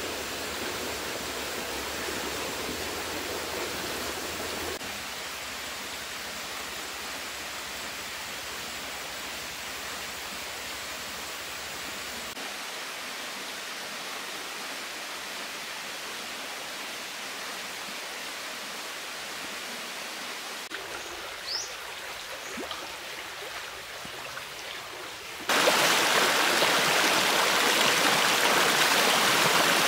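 Rocky stream running: a steady rush of water, fainter for most of the time, that suddenly turns loud and close about 25 seconds in as fast water pours over rocks. A single faint, short high chirp is heard a few seconds before that.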